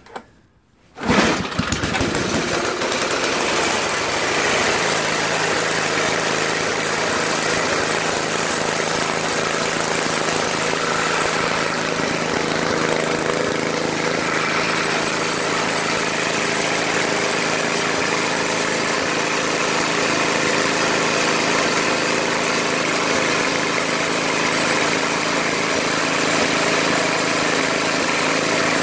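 Toro 521 snowblower's 5 hp Tecumseh engine is pull-started about a second in after a brief silence, catching at once and running steadily at an even speed. It is running well after its carburetor clean and a new fuel inlet nozzle.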